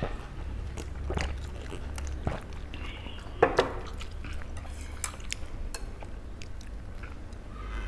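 A heavy glass beer mug set down on a wooden table with a sharp double knock about three and a half seconds in, amid lighter clicks of chopsticks and tableware over a low, steady room hum.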